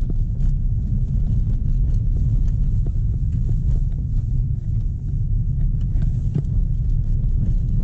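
A small 1.0-litre car driving slowly on a dirt road, heard inside the cabin: a steady low rumble of tyres and engine, with scattered small clicks and knocks.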